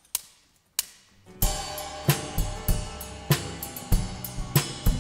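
Two more clicks of a count-in, then a live band starts playing about a second and a half in: drum kit with cymbals, snare and kick on a steady beat, with electric bass and acoustic guitar.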